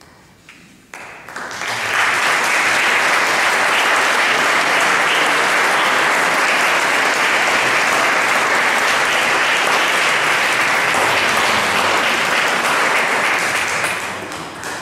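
Audience applauding: the clapping swells in about a second in, holds steady, and dies away near the end.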